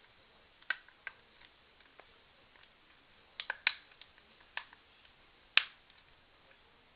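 Scattered sharp plastic clicks and taps of a Sony Ericsson W518a phone's battery cover being handled and fitted back on, the loudest click about five and a half seconds in.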